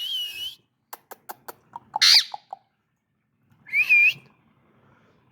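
Indian ringneck parrot calling: a whistled note trails off at the start, then comes a run of short sharp clicks and two loud, curving squawk-whistles about two seconds apart.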